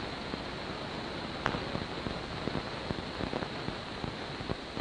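Steady hiss with scattered crackles and a faint, steady high whine, with one sharper click about a second and a half in: the background noise of an old film soundtrack running with no speech.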